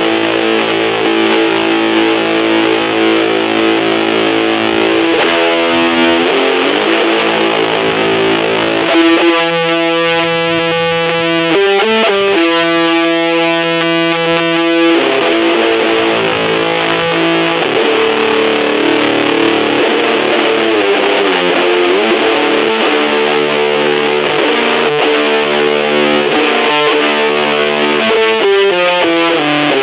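Electric guitar played through a fuzz pedal into a small battery-powered Junkbox amplifier: thick, fuzzy distorted notes and chords held for a few seconds each, with a few quicker note changes around the middle and near the end.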